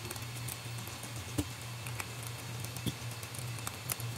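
A small screwdriver turning the screws of a 3D-printed beadlock ring on an RC crawler wheel: a few separate light clicks and taps of metal on screw and plastic, over a steady low hum.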